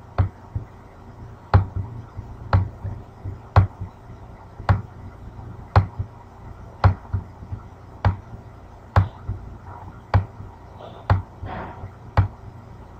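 Computer mouse clicking about once a second, single sharp clicks, over a faint low hum.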